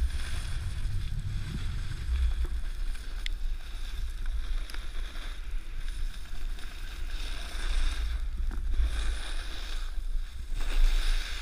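Wind buffeting the camera microphone as a steady low rumble, over the uneven hiss of a snowboard sliding and carving through snow.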